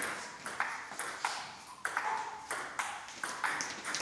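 Table tennis rally: the celluloid ball clicking sharply off the rubber paddles and bouncing on the table, a few quick clicks every second.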